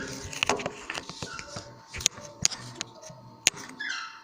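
Homemade slime being squeezed and stretched by hand, giving a run of sharp, irregular clicks and small pops. It clicks only a little because too much talc went into it.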